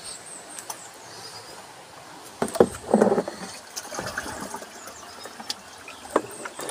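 Rainwater in a plastic barrel splashing and gurgling, loudest for about a second around two and a half to three seconds in, with a few clicks.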